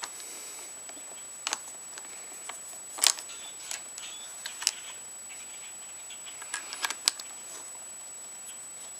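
Irregular small clicks and taps of an aluminium motorcycle clutch lever being handled and worked onto its perch, trying to line up the pivot hole. The sharpest knocks come about three seconds in, near the middle, and about seven seconds in.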